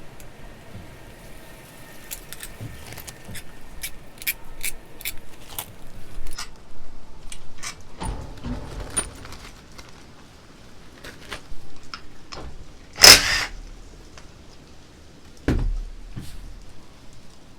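Metal tools and small engine parts clinking and clicking during hand disassembly of an ATV engine. A string of light ticks comes about three a second for several seconds, with a couple of dull thumps and one loud metallic clank about two-thirds of the way through.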